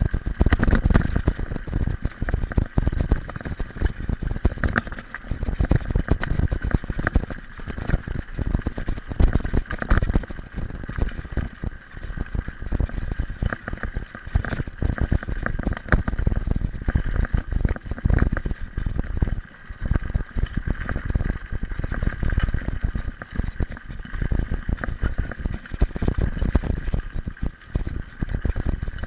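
Mountain bike rolling over a loose gravel road, picked up by a handlebar-mounted camera: a steady rumble of tyres on stones with constant rattling and jolts through the frame.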